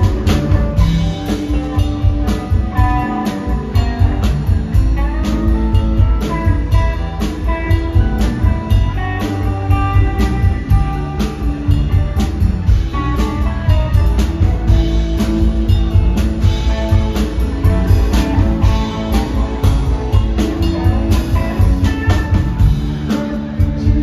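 Live rock band playing an instrumental passage: two electric guitars, bass guitar and a drum kit keeping a steady beat, with a saxophone in the line-up.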